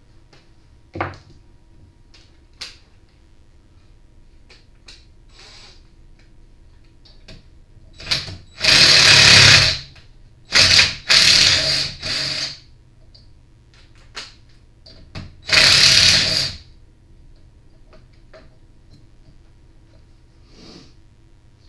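Cordless impact driver run in four short bursts of about a second each, starting about eight seconds in, driving the centre bolt of a flywheel puller to draw the flywheel off the engine's crankshaft. Light clicks and knocks of tools being handled come before the bursts.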